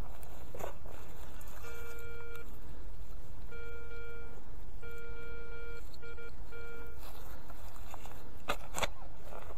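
Garrett ACE 250 metal detector beeping as the coil passes over a buried metal target: about five beeps of one pitch, each under a second long, the later ones choppy and broken up. A few short scrapes come near the end.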